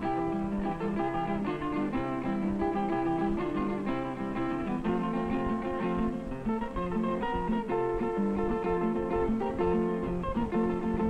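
Filipino rondalla string band playing: a bandurria plucked with a pick, picking out quick melody notes over strummed guitars.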